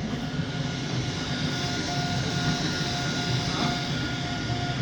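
3D printer running mid-print: a steady mechanical hum, with a short mid-pitched stepper-motor tone repeating about twice a second from about a second and a half in as the print head moves back and forth.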